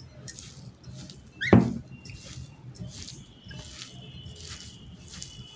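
A hand mixing and squeezing salted grated raw potato in a glass bowl: soft, irregular wet squishing and rustling, a stroke about every half second. About one and a half seconds in, a brief louder squeak falls sharply in pitch.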